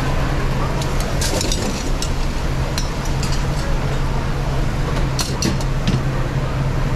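Steady roar of commercial kitchen ventilation with a low hum, broken by several sharp metal clinks from tongs against a charcoal grill's steel grate and fittings: a cluster about a second in, a couple near three seconds, and another cluster around five seconds.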